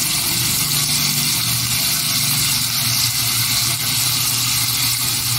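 Onion and garlic sizzling in hot oil in a pan, a steady hiss, with a low steady hum underneath.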